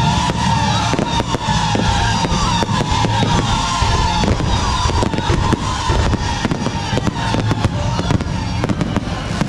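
Fireworks going off in a dense, rapid crackle of sharp pops and bangs, many a second, over background music.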